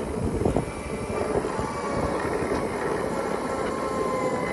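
2016 Segway X2's electric drive whining as it rolls along, several thin pitches drifting slowly up and down, over a hiss of wind and tyre noise.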